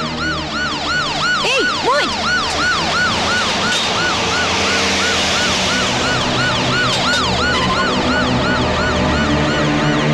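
Vehicle siren on an official car with a red roof beacon, wailing in quick rising-and-falling sweeps, about three a second.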